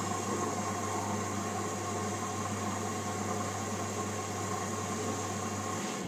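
LG Direct Drive front-loading washing machine humming steadily with rushing water, from its drain pump or water inlet valve rather than the drum. The hum cuts in abruptly just before and cuts off near the end.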